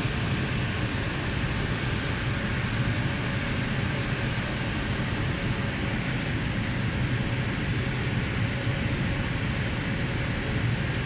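Steady equipment-room ventilation noise: the even rush of air-conditioning and cooling fans over a low hum.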